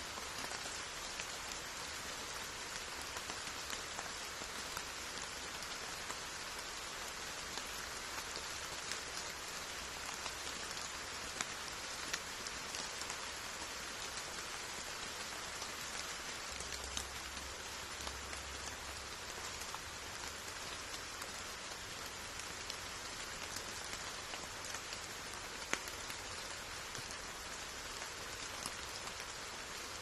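Steady rain falling: a continuous even hiss with scattered individual drop ticks.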